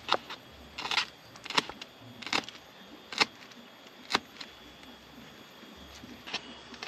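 Knife slicing bird's-eye chilies, a sharp tap each time the blade comes down, roughly one a second with a pause near the end.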